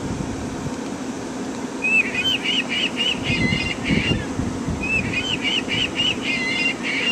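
A plush toy gull's built-in sound playing a recorded gull call twice: each time a quick series of about eight laughing notes lasting about two seconds. A steady low hum runs underneath.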